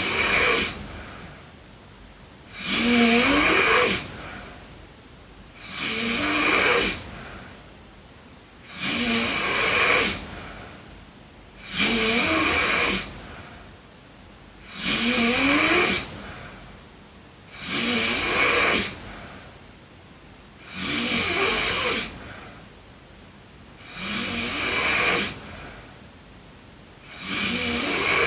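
A sleeping girl snoring in a steady rhythm: a snore about every three seconds, each lasting about a second, with quieter breathing between.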